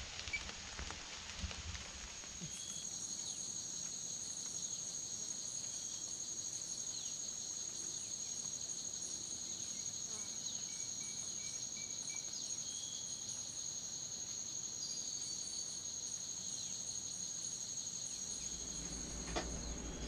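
A steady chorus of rainforest insects: a constant high shrill tone with a pulsing trill above it, setting in about two seconds in after a low rumble.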